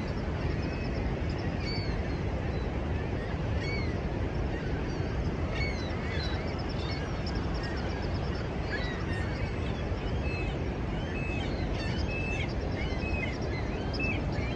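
Steady roar of Niagara Falls' falling water, with many short bird calls chirping over it, growing busier in the last few seconds.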